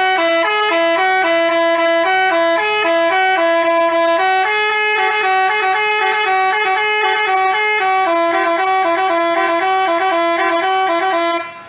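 Basuri telolet bus horn playing a tune: a long run of quick, stepped horn notes in two parts at once, cutting off abruptly near the end.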